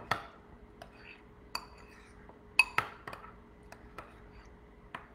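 A spoon clinking and knocking against a bowl about half a dozen times at irregular moments, the loudest strike ringing briefly about two and a half seconds in, as overnight-soaked chia seed gel is stirred and broken up.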